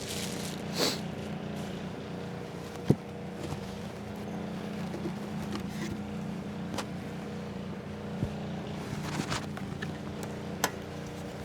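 Honeybees humming steadily from an open hive, with a few sharp clicks and knocks from frames being handled.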